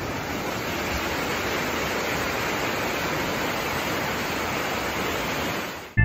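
Steady rush of whitewater pouring down a steep shale creek spillway in high flow, fading out just before the end.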